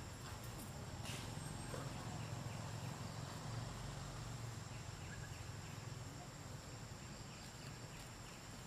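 Outdoor insect chorus: steady high-pitched buzzing over a low hum, with a faint click about a second in.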